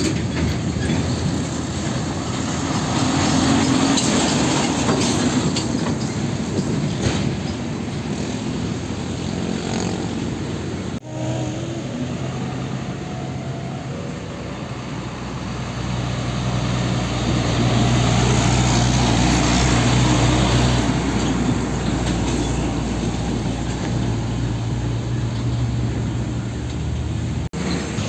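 Heavy diesel container trucks (Nissan Diesel and Hino tractor units) driving past one after another, engines running under load through a bend, over steady road traffic noise. The sound breaks off abruptly twice, where one clip gives way to the next.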